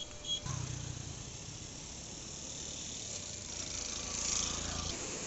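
Outdoor ambience beside floodwater: a steady high hiss, with a few short insect chirps at the start, and a low motor-like hum that comes in about half a second in and cuts off just before the end.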